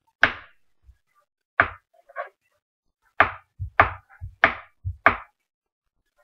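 Kitchen knife cutting a cold stick of butter into small cubes, the blade knocking down onto the cutting board in irregular strokes, about six loud ones with a few lighter taps between, coming faster in the second half.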